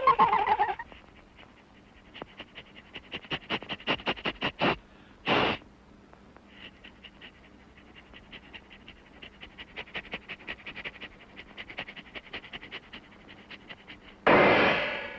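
Cartoon dog sniffing and panting in long runs of quick, short puffs, several a second. A brief burst of cartoon laughter opens it, and a short loud burst sounds near the end.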